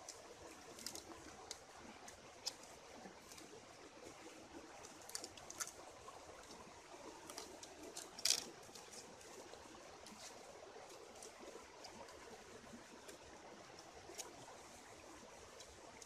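A stream trickling steadily, with scattered sharp clicks and smacks of people chewing and eating grilled duck with their hands, the loudest about eight seconds in.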